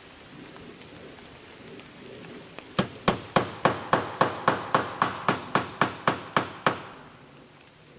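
A hammer driving a nail while aluminum fascia trim is fastened: a quick even run of about fifteen strikes, roughly three a second, lasting about four seconds.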